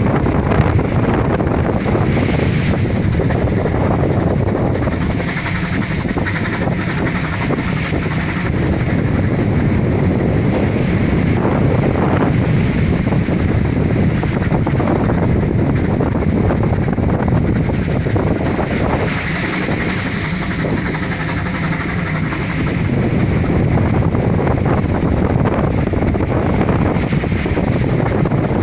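Heavy wind buffeting the microphone and storm waves washing against a fishing boat at sea, a loud, continuous rush that swells and eases every several seconds.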